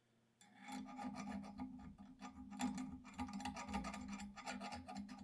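Rapid, irregular rasping and scraping of metal with a steady hum underneath, from work on an early Ford spindle's kingpin bore. It starts about half a second in.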